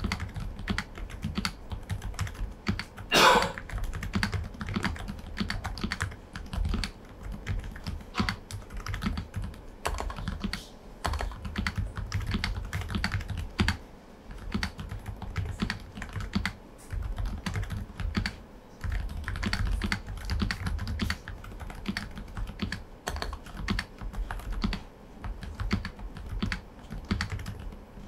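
Typing on an Aula F98 Pro V2 mechanical keyboard with silent switches: a fast, continuous run of soft, deep keystrokes, with one louder, longer stroke about three seconds in.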